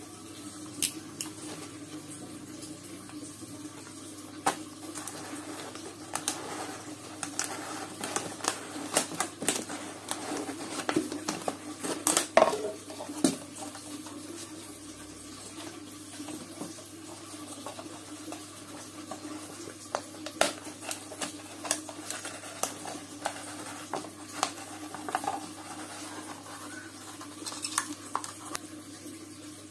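Clear plastic bottle being cut with a craft knife and handled: scattered clicks, taps and crinkles of thin plastic, densest in the middle, over a steady low hum.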